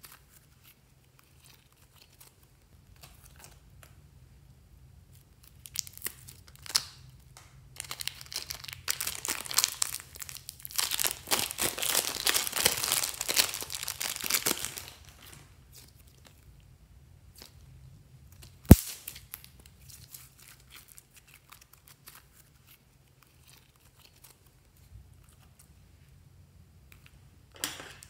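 A clear plastic piping bag crinkling and rustling as hands squeeze and peel it off blue slime. It is dense and loud for about seven seconds in the middle, after faint sticky crackles of slime being stretched. A single sharp click comes a few seconds after the crinkling stops.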